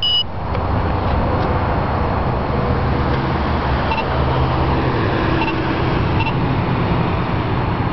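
Steady low outdoor rumble, with short faint electronic beeps from a prototype laser tag device: a brighter one right at the start, then single faint beeps about four, five and a half, and six seconds in.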